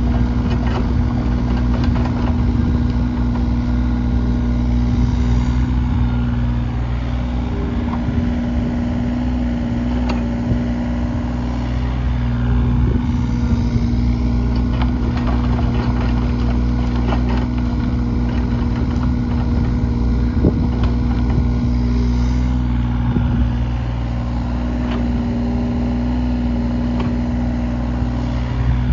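John Deere 35G compact excavator's diesel engine running steadily as the machine digs and dumps soil, with scattered short knocks over it.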